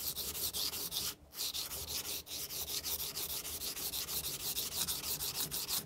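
Masakage kitchen knife being sharpened on a coarse 220-grit whetstone: quick, even back-and-forth strokes of steel scraping across the stone, several a second, with pressure on the bevel close to the edge. The strokes break off briefly about a second in and again about two seconds in.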